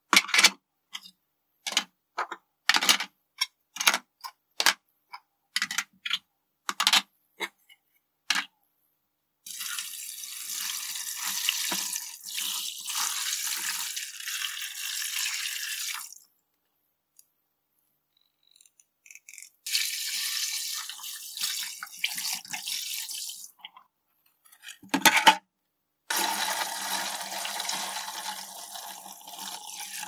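Hard plastic coffee-machine parts clatter as they are set down in a plastic tub, a dozen or so sharp knocks. Then water pours or runs over the parts in three spells of several seconds each, with short gaps and a couple of knocks between them.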